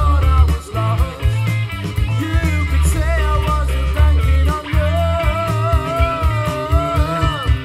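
A rock song with a singing voice, guitar and heavy bass, played through Bang & Olufsen Beolab Penta loudspeakers; a long wavering sung line comes in past the middle.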